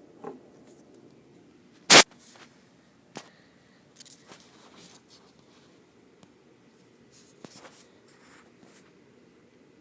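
Handling noise as the camera is picked up and repositioned: one loud sharp knock about two seconds in, then scattered light clicks, taps and rubbing.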